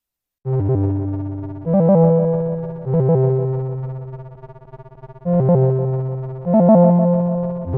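Android stock alarm tone: a synthesizer, like an electric piano, plays low sustained chords. The chords come in two phrases of three, each chord fading before the next.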